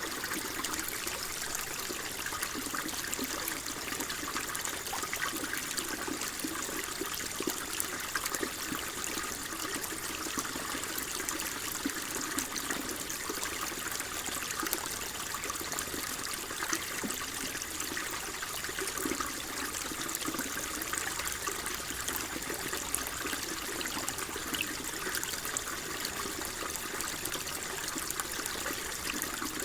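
Water flowing and trickling steadily, an even rushing with a gurgle in it that doesn't change.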